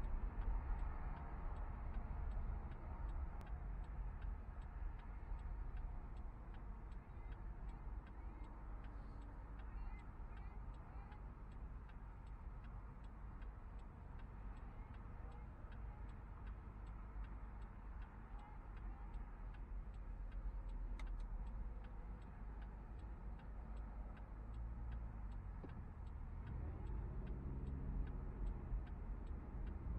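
Car heard from inside the cabin: a low engine and road rumble with a faint, regular ticking. The rumble grows louder near the end.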